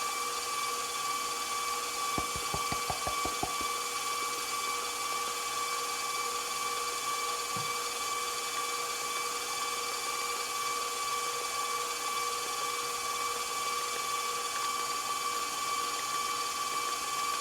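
KitchenAid stand mixer running at a steady speed, its motor giving a constant whine as it beats butter, cream cheese and sugar. A brief run of low knocks comes about two seconds in.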